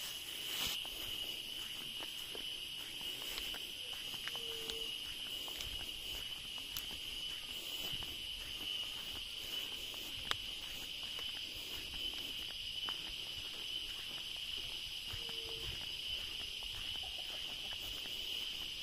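Steady high-pitched trill of insects, unbroken throughout. Twice a short low call sounds, about five seconds in and again some ten seconds later.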